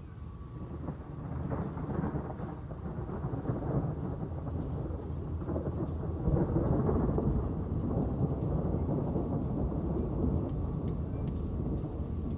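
Rolling thunder rumbling low over steady rain, building about a second in and loudest around the middle before easing a little.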